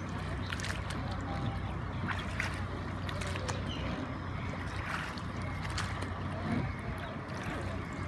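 Water trickling and lapping against the hull of a small rowboat out on a river, with a steady low hum underneath and a few faint clicks.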